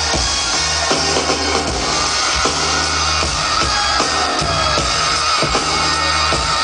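A live band playing a hip-hop beat over the arena sound system: a deep bass line in long held notes under regular drum-kit hits.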